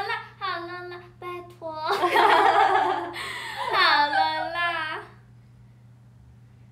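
Young women's voices exclaiming excitedly, with one breathy, noisy outburst, stopping about five seconds in. After that only a low steady hum is left.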